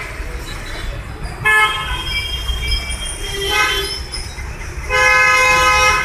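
Vehicle horns honking in three blasts, each a steady pitched tone: a longer one about a second and a half in, a short one midway, and a long one from about five seconds in, over a steady low rumble.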